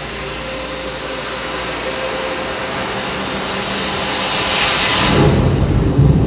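Light-show soundtrack over loudspeakers: a rush of noise swells to a peak about four to five seconds in, then drops into a deep low rumble.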